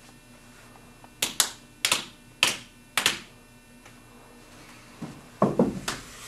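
Finger snapping in a steady rhythm: four evenly spaced pairs of sharp snaps, followed near the end by a few dull thuds and scuffs of bodies moving.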